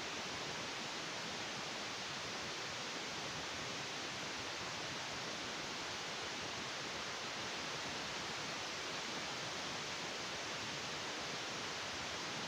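A steady, even hiss that does not change. There is no engine note or other distinct sound in it.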